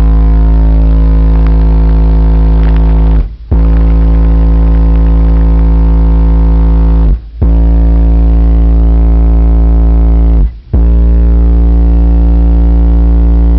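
12-inch Pioneer subwoofer driven by a Brutus 1608D amp playing deep bass sine test tones, stepped up from 54 Hz to 58 Hz as four steady tones of about three and a half seconds each with brief breaks between. Very loud inside the car and heavily distorted on the recording.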